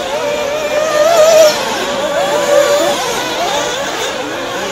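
Several nitro RC buggy engines racing, their pitches rising and falling as the drivers throttle on and off.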